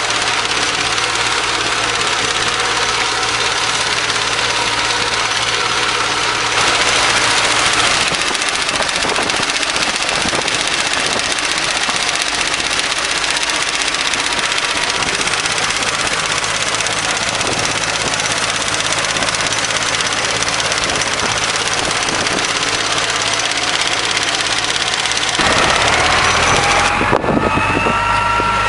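Engine-driven hay mower running steadily, a continuous mechanical drone of engine and cutting gear. Near the end the sound changes, with a rising pitch.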